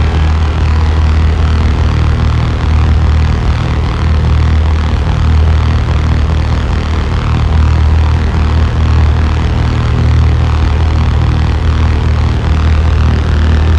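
Live experimental electronic noise music: a loud, steady low drone under a dense wash of noise, holding without breaks or a beat.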